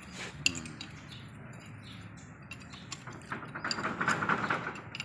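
Metal clinks and scraping from tools and loose steel pump parts being handled, with one sharp knock about half a second in and a louder stretch of scraping near the end.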